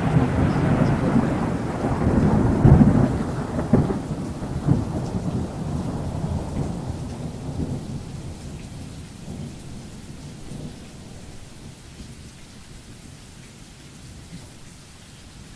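Thunder rumbling over rain, loudest in the first few seconds and then fading away gradually.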